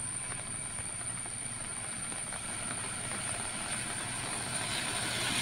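Heavy rain falling, a steady even hiss with a low hum and a thin high whine beneath it, swelling a little near the end.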